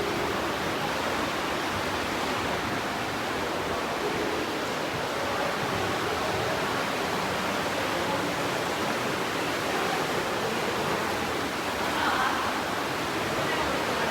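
Fast glacial river water rushing through a narrow rock gorge, a steady, even rush of white water.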